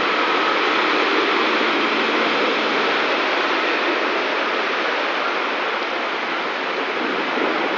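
Heavy tropical rain pouring down steadily, a dense, even hiss of water.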